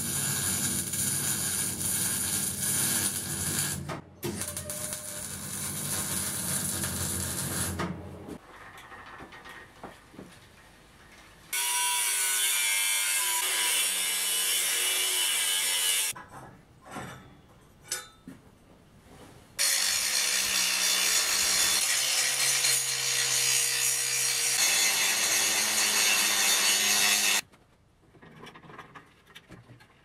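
Electric welding on steel with a steady crackling hiss for about eight seconds, then an angle grinder grinding steel in two long passes, its pitch sagging under load, with short quieter gaps and a few clicks between them.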